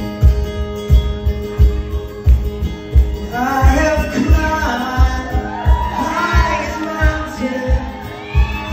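Live acoustic guitar playing over a steady low thump about every 0.7 seconds. A man's singing voice comes in about three seconds in.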